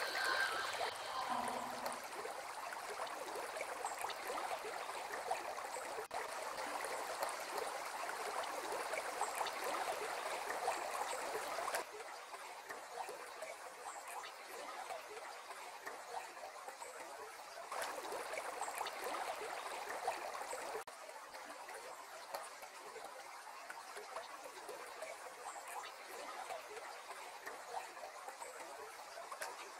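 Shallow river water running steadily over a stony bed, a continuous rushing babble. It drops to a quieter level about twelve seconds in and again about twenty-one seconds in.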